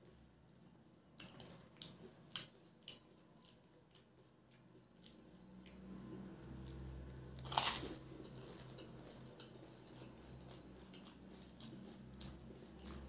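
Close-up eating of pani puri: wet crunching, chewing and mouth clicks, with one loud crunch a little past the middle as a crisp, water-filled puri is bitten.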